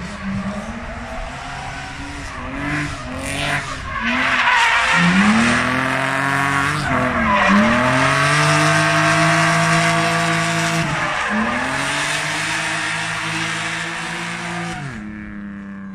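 Drift car sliding on the limit: the engine is held high in the revs, dropping sharply and climbing again about four times, over continuous tyre squeal and skidding. Near the end the revs settle and the sound fades away.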